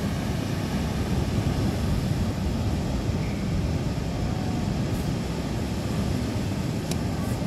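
Steady roar of ocean surf breaking on a beach, mixed with wind rumbling on the microphone.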